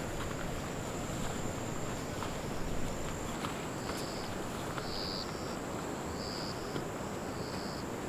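Forest ambience: a steady high insect drone over an even hiss. From about halfway through, short high chirps repeat roughly once a second.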